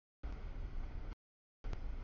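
Double-stack container train rolling past: a steady low rumble of wheels and cars that cuts out abruptly to dead silence, with one gap near the start and another about halfway through.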